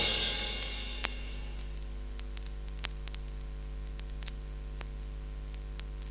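The tail of the music fades out, leaving a 7-inch vinyl single playing on in its run-out: a steady mains hum with faint surface hiss and scattered clicks, two of them louder, about a second in and near three seconds in.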